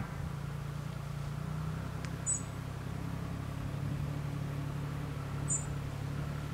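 Steady low engine hum, with two brief high-pitched chirps about three seconds apart.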